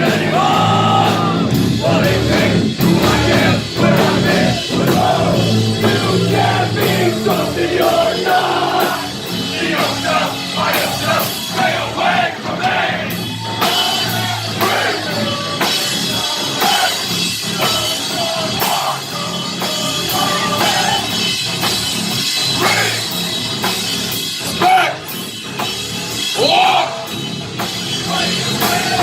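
Live heavy metal band playing loudly: distorted electric guitars and a drum kit with many sharp hits, with vocals at times.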